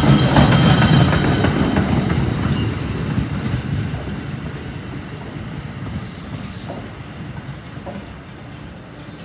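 Bilevel commuter train coaches rolling past and slowing to a stop, wheels rumbling on the rails with a thin high squeal of braking from about a second in. The rumble fades steadily as the train loses speed.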